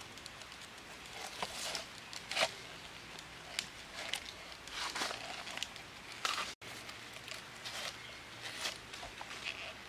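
Split bamboo strips clicking and rustling as they are handled and bound together with cord, in scattered short knocks and scrapes at irregular intervals.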